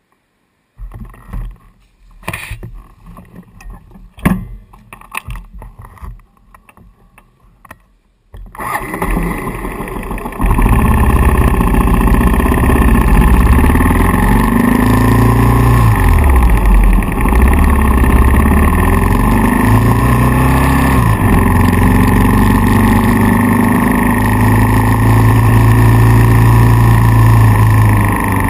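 Kawasaki KLR650's single-cylinder engine turned over for about two seconds and catching, then idling steadily and loudly. Before the start, a few scattered clicks and knocks.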